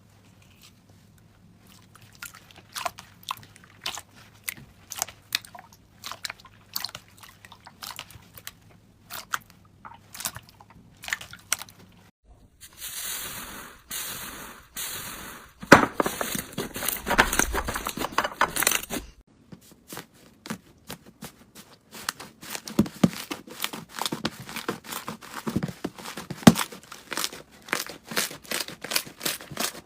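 Slime being squeezed and pressed by hand, giving irregular crackling, clicking pops. The pops come thicker and louder for several seconds in the middle.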